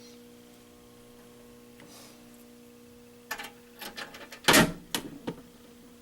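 A steady low electrical hum. From a little past halfway come a few clicks and knocks from things being handled, the loudest a sharp thump about four and a half seconds in.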